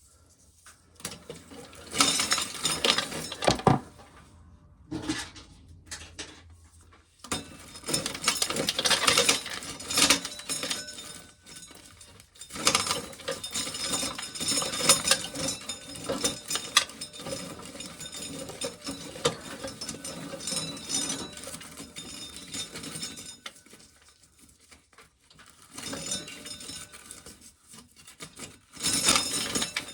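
Dried corn being shelled, with kernels rattling and clinking as they pour into a tub. It comes in several spells with short pauses between them, the longest running about ten seconds through the middle.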